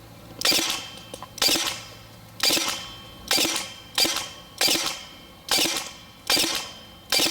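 EMG Seekins Precision SP223 airsoft electric rifle (AEG) firing single shots at a steady pace of about one a second, nine in all. Each is a sharp crack that fades out over about half a second.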